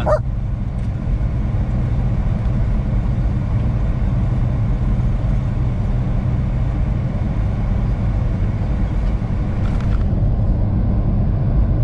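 Steady low engine and road drone heard inside the cab of a truck cruising at speed.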